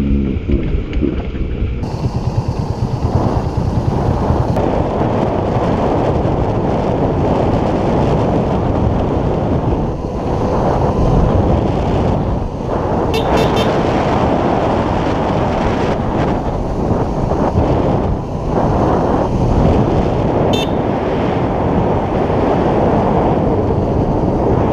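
Motorcycle riding along a road: the engine running under steady wind noise on the camera microphone. Two brief high-pitched chirps cut through, about halfway in and again later.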